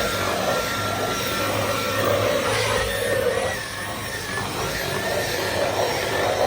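Dyson V15 Detect Absolute cordless stick vacuum running steadily while vacuuming, dipping slightly in level about halfway through.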